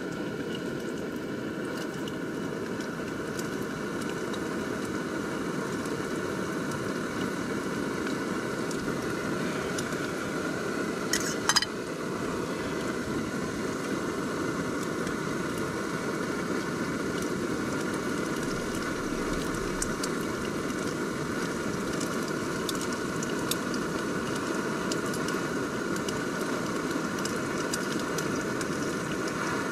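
Portable gas canister stove burner running steadily under a cooking pot. A utensil clinks sharply against the metal pot about eleven seconds in, with faint scraping and ticks as the food is stirred.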